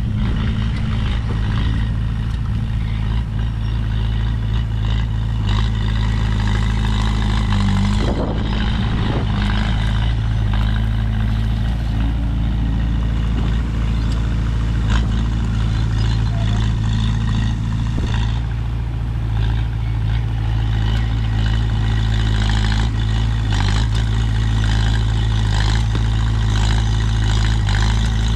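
Komatsu bulldozer's diesel engine running steadily, with the engine note shifting briefly about eight seconds in and again around eighteen seconds.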